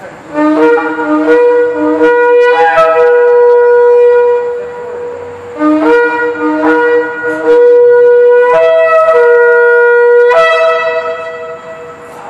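Two shofars blown together in two long calls. Each call opens with short blasts on a low note and a higher note sounding at once, then settles into a long held upper note. The second call begins about five and a half seconds in.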